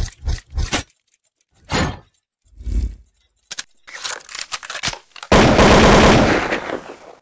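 Animated logo-intro sound effects: a rapid run of sharp impacts, two separate heavy hits about a second apart, scattered clicks, then a loud noisy rush for about two seconds that fades out near the end.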